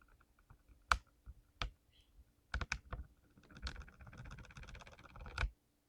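Mechanical keyboard being typed on: a few separate keystrokes, then a fast run of typing from about three and a half seconds in that stops shortly before the end on a louder keystroke.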